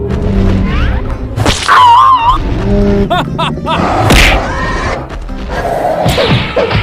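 Cartoon fight sound effects over background music: whacks and thuds, whooshes, a warbling tone about two seconds in, and a loud impact burst about four seconds in.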